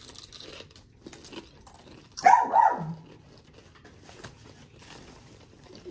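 Tortilla chips crunching as two people chew, in small clicky crackles. About two seconds in, a loud two-part vocal sound cuts through.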